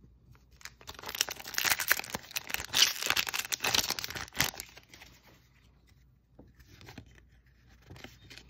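Foil wrapper of a Magic: The Gathering booster pack being torn open and crinkled for about three and a half seconds. After that come faint clicks and slides of cards being handled.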